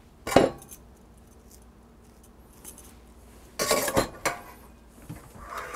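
A sharp metal clink about a third of a second in, then a short run of clattering knocks about three and a half seconds in. This is a stainless steel potato ricer being knocked against a glass bowl and put down.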